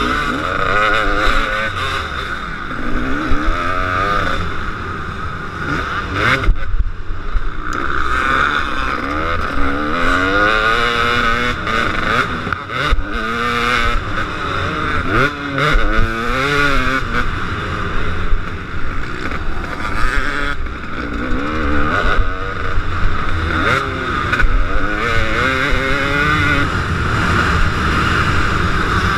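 KTM 250 SX two-stroke motocross bike engine at race pace, its pitch repeatedly rising and falling as the throttle is opened and shut through corners and gear changes. The throttle is briefly closed about six and a half seconds in.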